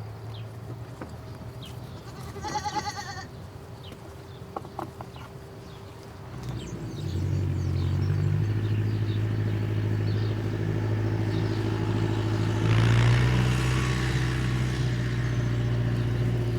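A short bleat, then a vehicle engine comes in about six and a half seconds in and runs steadily with a deep hum, surging louder with a hiss about thirteen seconds in.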